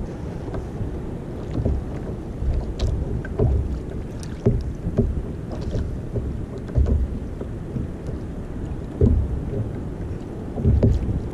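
Wind rumbling on the microphone and water lapping against a sit-on-top kayak's hull, with irregular low thumps every second or two and a few faint clicks.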